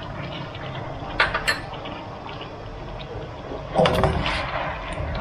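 Kitchen clatter: two sharp clicks of cookware a little over a second in, then a louder, briefly ringing clatter at about four seconds.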